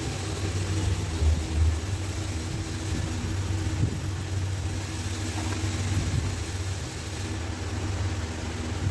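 Steady low droning hum of a running motor, like an engine idling, with a few brief louder bumps in the first two seconds.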